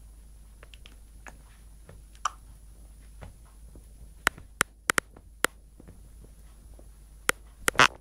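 A series of sharp, irregular clicks or taps, about eight, mostly in the second half and loudest just before the end, over a low steady hum.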